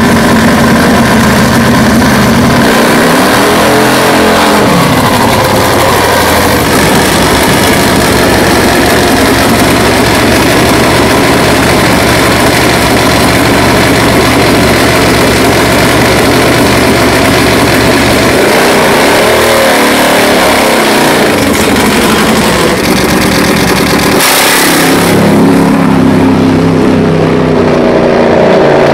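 A nitro-burning Top Fuel Harley drag bike's V-twin engine runs very loud throughout. It revs up and back down twice, runs roughly at lower revs in between, and then gives a sudden full-throttle blast about 24 seconds in.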